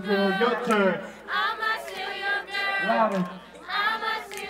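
Voices shouting and singing in about four short phrases, with crowd noise.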